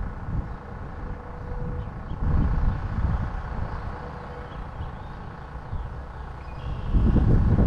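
Wind buffeting the microphone in uneven gusts, strongest about two seconds in and near the end, over a faint steady hum.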